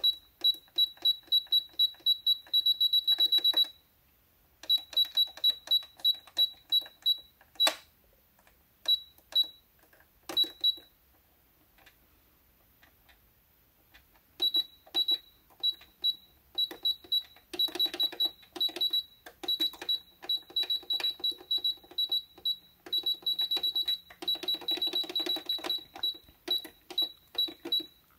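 Brother EX660 computerized sewing machine's control panel beeping as its stitch-setting buttons are pressed: short high beeps, one with each button click, in quick runs with pauses between them.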